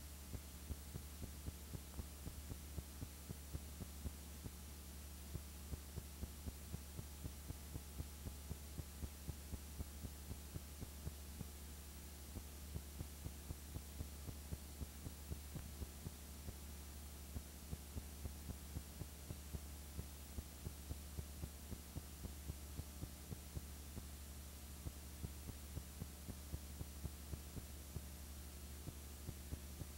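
Steady low electrical hum with a faint hiss and light clicks about twice a second: the background noise of a silent old home-movie transfer, with no speech or music.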